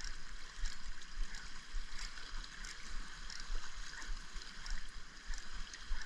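Small waves lapping and sloshing against shoreline rocks: a steady watery wash with small scattered splashes.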